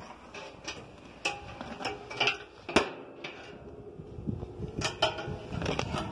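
A string of clanks and taps from the thick steel parts of a barbecue smoker being handled, about eight in all, some ringing briefly; the loudest comes about three seconds in.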